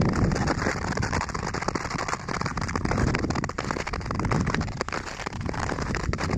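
Nordic skate blades gliding and scraping over thin snow on natural lake ice, heard as a dense, steady crackle of many small clicks.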